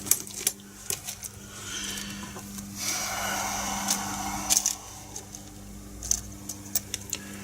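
Small wire-lead resistors being sifted and pushed about by hand: a scatter of light clicks and rattles, with a rustle lasting about a second and a half in the middle, over a steady low hum.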